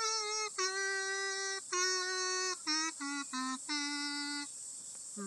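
Music: a slow melody of long, steady held notes stepping between a few pitches, with short gaps between them and a brief lull before a lower note near the end.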